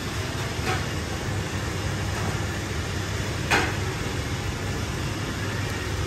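Steady background noise, a low hum under an even hiss, broken by two brief noises, the louder one about three and a half seconds in.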